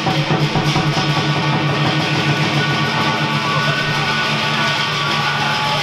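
Loud music with a prominent guitar sound, held tones over a fast, steady low pulse.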